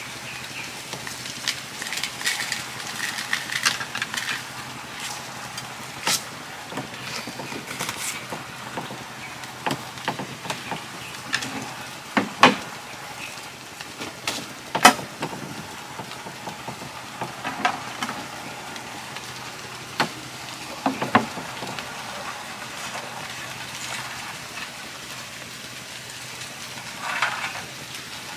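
A pot of fermented-rice broth cooking over a fire: a steady hiss with scattered sharp clicks and knocks, the loudest about halfway through.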